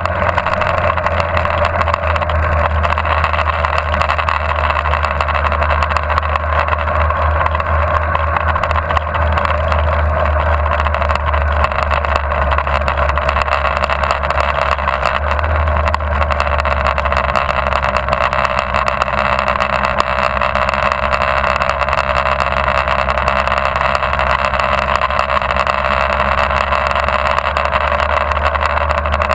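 Motorcycle engine running steadily at a calm cruising pace, with a steady rush of wind over the microphone.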